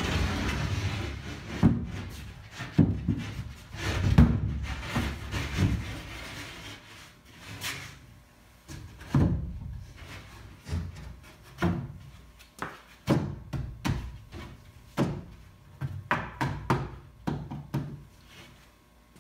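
Plywood panels being slid and knocked into place in a wooden outhouse seat box: scraping and sliding for the first few seconds, then a run of irregular wooden thunks and knocks.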